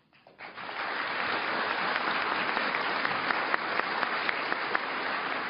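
Audience applauding. It rises in the first second, then holds steady.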